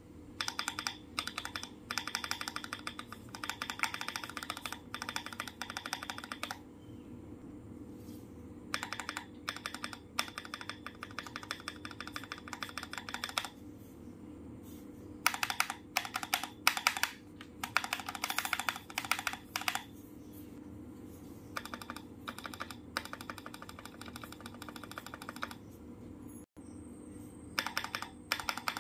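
Mechanical keyboard being typed on in quick runs of keystrokes: about six bursts of rapid clicking, each a few seconds long, with short pauses between.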